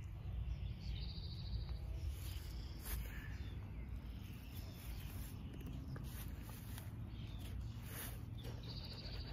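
A folding knife cutting into a watermelon's rind in a few short strokes, over a low wind rumble on the microphone. A short high trill is heard twice, about a second in and near the end.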